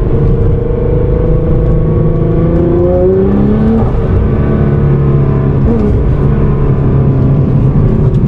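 Twin-turbo V6 of a heavily modified Nissan R35 GT-R accelerating. Its pitch climbs for about three seconds, drops at an upshift near the four-second mark, then holds fairly steady.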